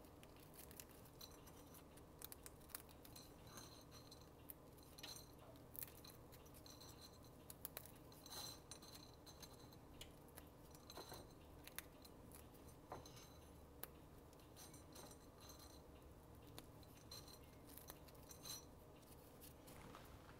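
Faint, irregular crackling and small clicks of crisp cooked bacon being crumbled by hand into a ceramic dish.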